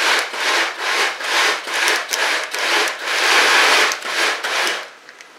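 Plastic packet of belacan (shrimp paste) rustling and crinkling as it is handled and rubbed close to the microphone, in loud repeated swishes about twice a second, with one longer swish about three seconds in.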